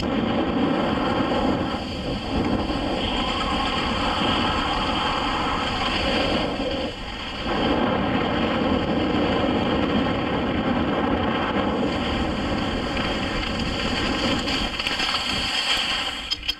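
Loud wind buffeting and rushing over the camcorder microphone while skiing fast downhill, mixed with skis hissing over the snow, dipping briefly about seven seconds in.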